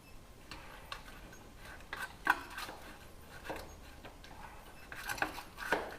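Putty knife scraping and prying at the windshield trim and its retaining clips: a run of short scrapes and clicks, the sharpest about two seconds in and a cluster near the end.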